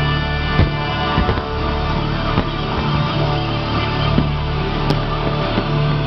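Rock music with guitar and drums, with a few short sharp cracks scattered through it.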